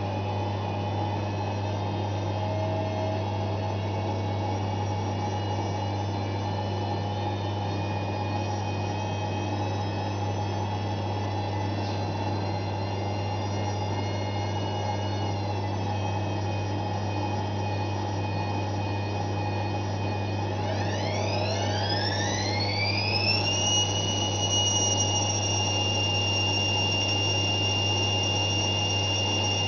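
Zanussi ZWF 1621 W washing machine spinning: a steady motor hum with a high whine. About twenty seconds in, the whine rises quickly in pitch as the drum speeds up, then holds steady at the higher pitch.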